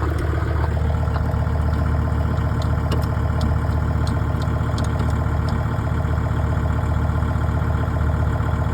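Heavy farm machinery engine running steadily at idle, a low, even hum with a regular pulse.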